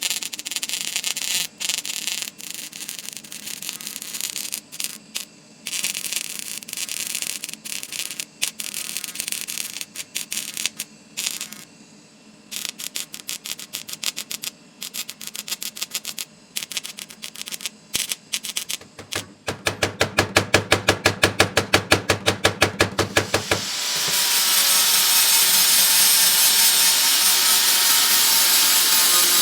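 Cold welding machine crackling in irregular bursts as it deposits repair metal on a bronze mould, then pulsing at a steady rhythm of about five a second. In the last few seconds a steady rasping noise takes over.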